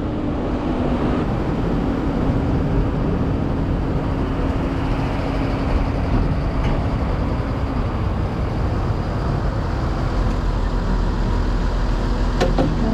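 Heavy diesel engine idling steadily, with a short metallic clank near the end.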